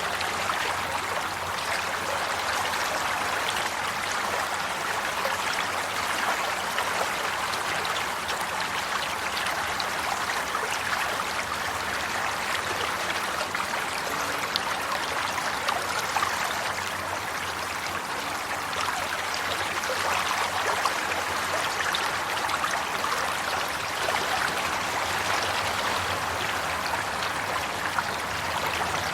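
Water of a stream running steadily, a continuous babbling and trickling rush.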